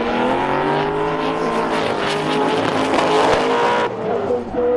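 Two drift cars' engines revving in a tandem run, pitch rising and falling, with tyre screech building in the middle; the noise cuts off abruptly near the end.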